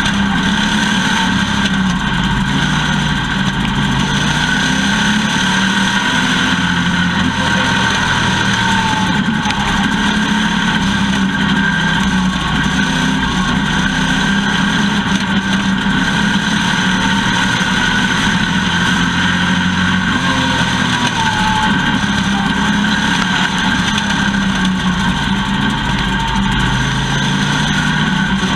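Race car engine running continuously under load, its pitch slowly rising and falling over and over, with steady road and wind noise.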